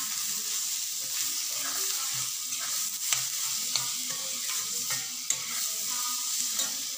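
Boiled bamboo shoots frying with a steady sizzle in a black wok while a long-handled metal spatula stirs and scrapes them through the oil. A few sharp clicks come partway through.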